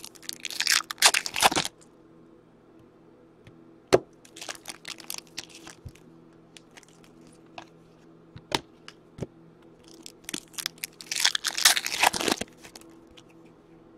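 Foil trading-card pack wrappers being torn open and crumpled by hand, crinkling in two bursts, one at the start and a longer one near the end, with a few sharp clicks in between.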